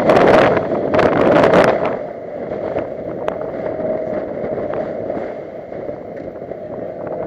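Inside a 2009 Honda Civic Si on a wet track: a loud hiss of tyre spray and wind for the first two seconds, then quieter, with a steady engine hum underneath.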